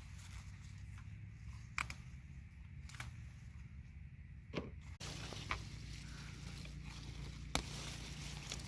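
Pepper stems snapping as ripe peppers are picked off the plant by hand: four sharp snaps, spaced irregularly.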